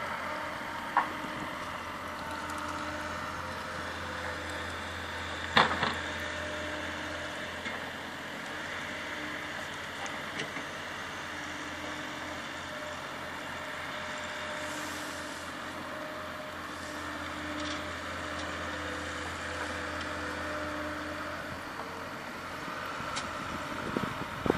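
Steady outdoor background rumble with a constant low hum, like distant engine noise, broken by two sharp clicks about one and five and a half seconds in.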